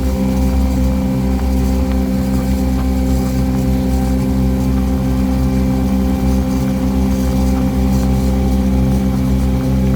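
Cruise boat's engine running steadily, a constant low drone with a hum of several steady tones.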